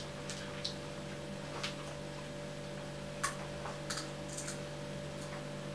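Scattered faint clicks and light crackles from fingers handling a small object, at irregular intervals with the sharpest about three seconds in, over a steady electrical hum.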